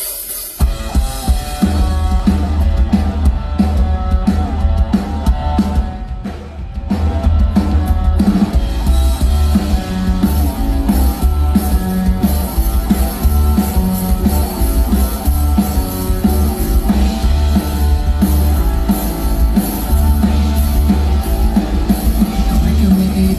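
Rock band playing live: drum kit, electric guitars and bass in a steady rock groove. The band comes in about half a second in and eases off briefly around six seconds before carrying on.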